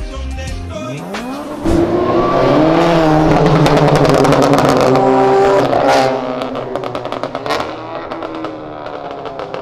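Car engine accelerating hard from a pull-away, revs climbing and dropping through several gear changes, with a run of sharp exhaust crackles in the middle. It fades as the car draws away, then another engine revs up near the end.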